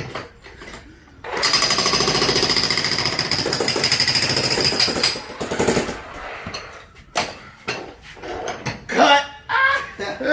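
Hilti TE 3000-AVR electric jackhammer breaking concrete. It runs in one rapid, continuous burst of about four seconds, starting a second or so in, then stops. A few scattered knocks follow.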